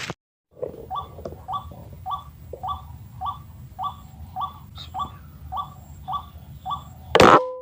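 White-breasted waterhen calling: a short rising note repeated about twice a second, over a dozen times. Near the end comes a sudden loud sound with steady tones.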